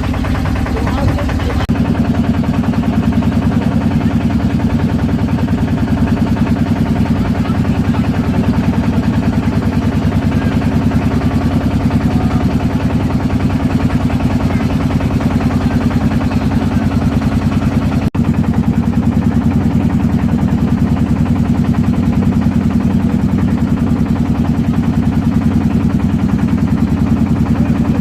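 Motorboat engine running steadily with a fast, even beat, growing louder about two seconds in.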